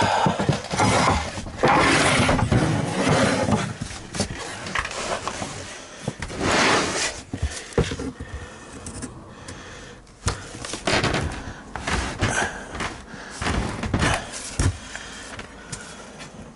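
Particle board subfloor panels being shoved and knocked into place: irregular thuds and knocks, with a few longer scraping washes as the boards slide and bind against each other.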